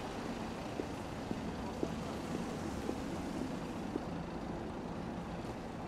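A car driving slowly along a city street, a steady low rumble with traffic hiss. Footsteps on paving stones tick about twice a second.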